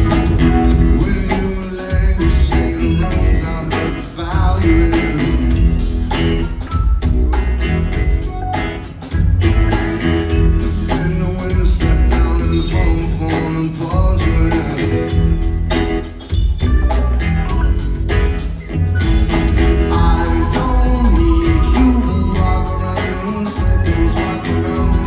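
Live band playing a song, with singing over guitar, drums and a heavy bass line.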